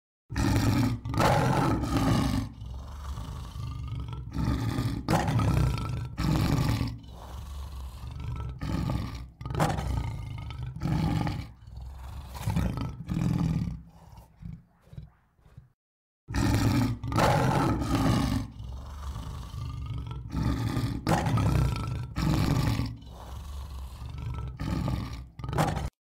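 Repeated roaring and growling in irregular bursts about a second apart, breaking off abruptly for about half a second midway and cutting off suddenly near the end.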